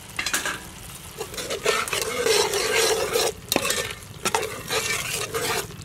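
Metal ladle stirring a pot of simmering pork bone soup, scraping against the sides and bottom of the metal pot in repeated, irregular strokes with brief pauses, over a light bubbling of the liquid.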